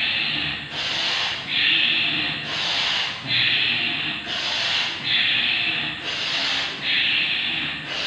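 Rhythmic forceful breaths, about ten hissing exhalations in eight seconds, close on a clip-on microphone, from a man working through a quick repeated yoga leg movement on all fours.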